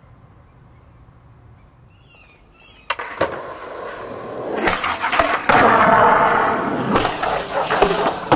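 Skateboard on concrete: a sharp clack of the board about three seconds in, then loud, gritty wheel rolling over the rough surface with further clacks from the board.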